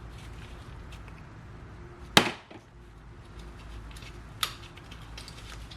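Small tools and carburetor parts being handled during a motorcycle carburetor teardown: a sharp knock about two seconds in, a lighter click a couple of seconds later, and faint ticks between, over a steady low hum.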